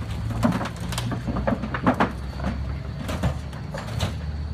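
Lifted Jeep Wrangler's engine running low and steady as it moves over a crushed sedan, with several sharp creaks and crunches from the car's bending sheet metal under the Jeep's weight.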